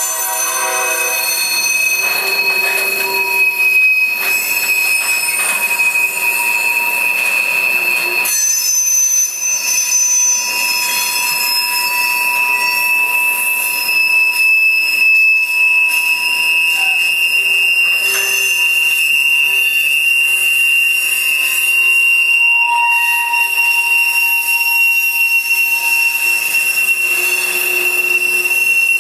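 Covered hopper cars of a CSX freight train rolling past, their steel wheels squealing on the rails in a steady, loud, high-pitched squeal over the continuous rumble of the cars.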